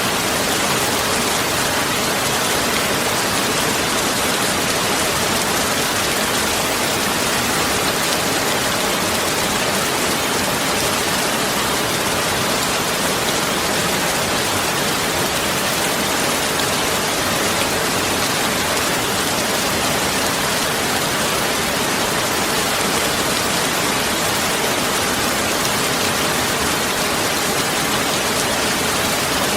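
Heavy rain falling steadily, a dense, even hiss of drops with no letup.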